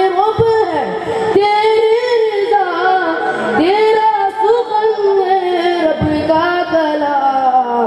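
A boy singing an Urdu naat solo into a microphone, holding long, ornamented notes that bend up and down, with short breaks for breath.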